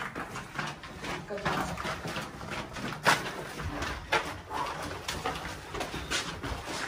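Irregular scuffs and knocks of footsteps and handling while a rescued dog is carried down a bare concrete stairwell, with a few faint animal cries.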